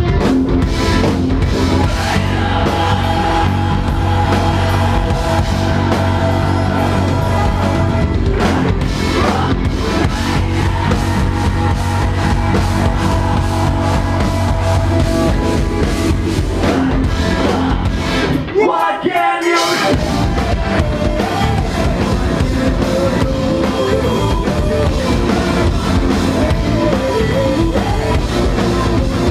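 Live rock band playing loud, with drum kit and electric guitar. The low end and drums drop out for about a second roughly two-thirds of the way through, then the full band comes back in.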